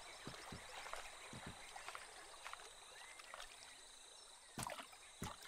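Faint jungle-river ambience of soft water and distant animal sounds, with a thin steady high tone and a couple of short clicks near the end.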